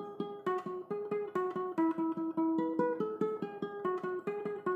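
Ukulele picking a single-note riff, most notes plucked twice in quick succession, about four to five notes a second.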